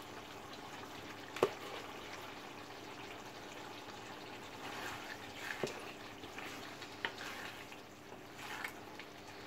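Chickpea and chicken keema curry simmering in a frying pan, its remaining liquid bubbling as it cooks down, while a wooden spatula stirs it. The spatula knocks against the pan a few times, the loudest knock about a second and a half in.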